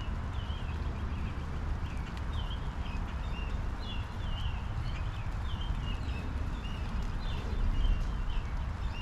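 Steady rain shower falling, with a songbird singing a continuous run of short, quick chirping phrases.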